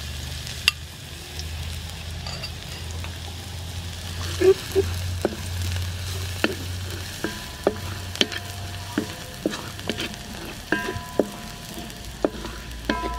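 Minced garlic sizzling in hot soybean oil in a wide metal wok, stirred with a wooden spatula that knocks and scrapes against the pan, the knocks coming more often in the second half.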